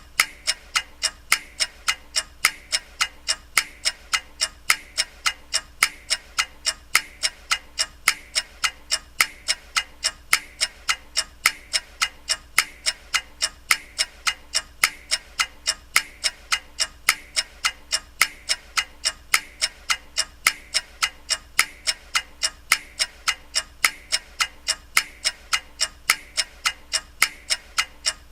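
Clock ticking, an even run of sharp ticks a few times a second with no change in pace.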